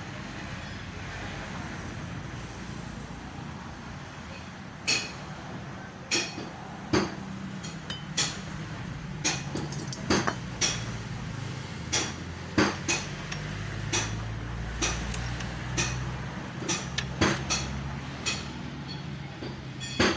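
Yamaha Mio Soul i 125 scooter's single-cylinder engine running steadily, with loud sharp metallic knocks at irregular intervals from about five seconds in, which the owner takes for piston slap.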